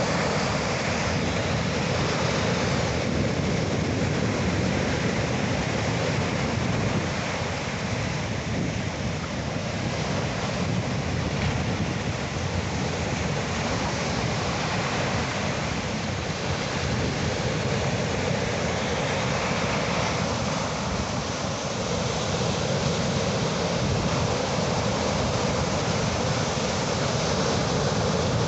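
Sea surf: waves washing in as a continuous rush of noise that swells gently and ebbs.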